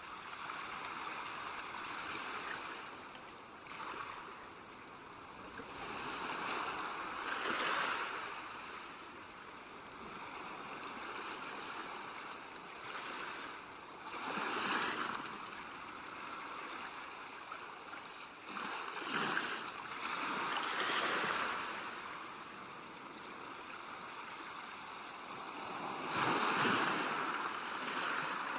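Calm sea waves washing onto a shore: a steady hiss of surf that swells louder every few seconds as each wave breaks and draws back.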